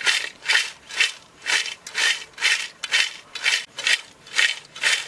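Crisp home-fried potato chips tossed by shaking them in a metal pot to coat them with chili powder and salt: a dry rattling rustle, about two shakes a second.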